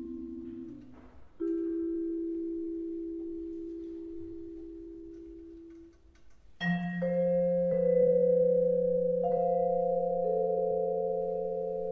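Solo vibraphone playing slow, sparse music with long ringing notes. A two-note chord struck about a second and a half in rings and fades over several seconds. After a brief gap, a loud chord with a low bass note is struck about halfway through, and further notes are added over it while it keeps ringing.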